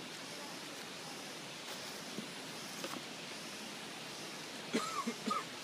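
Steady outdoor forest hiss with a few light footstep clicks of flip-flops on wooden steps; near the end a few short, high, rising-and-falling sounds stand out.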